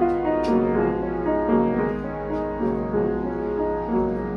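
Unrestored Mason & Hamlin model BB grand piano being played: a flowing passage of melody over held chords, notes changing every fraction of a second.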